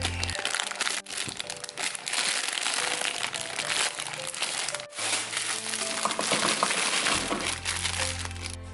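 A thin plastic produce bag of Brussels sprouts crinkling and rustling loudly as it is handled and opened, breaking off briefly twice, over background music.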